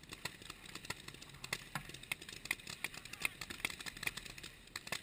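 Paintball markers firing: an irregular stream of sharp pops, several a second.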